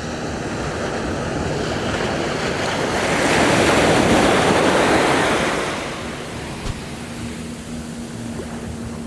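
Sea waves breaking on a sandy beach, one wash swelling about three seconds in and fading away by about six seconds. A faint steady low hum runs under the surf in the second half.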